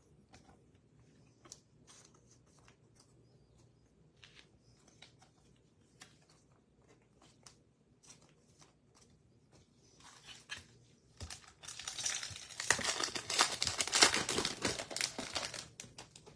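Scattered light clicks of cards and packaging being handled. About eleven seconds in, a trading card pack's wrapper is torn open and crinkled loudly for several seconds.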